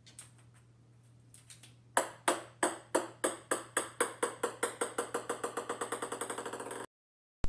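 A ping-pong ball bouncing on a wooden floor. The bounces come faster and fainter until they merge into a rapid patter as the ball settles.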